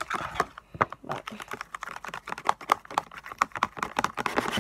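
Rapid clicking and tapping of a utensil stirring a watery mixture in a clear plastic tub, the clicks crowded close together as in sped-up footage.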